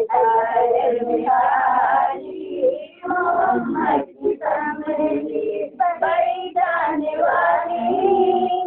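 A high voice singing a naat, an Urdu devotional song, in long held and gliding notes.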